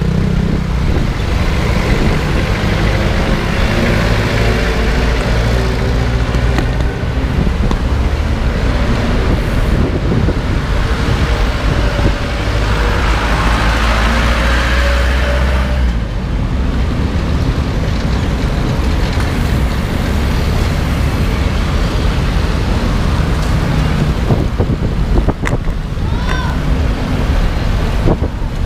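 Steady road traffic with heavy wind rumble on the microphone, swelling louder about halfway through.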